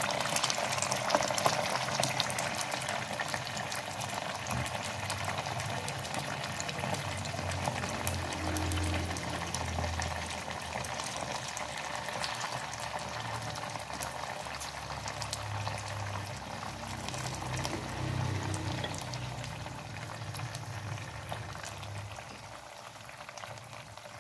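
Oil sizzling and crackling around lightly sun-dried croaker frying in a pan, a steady hiss of fine pops that slowly gets quieter toward the end.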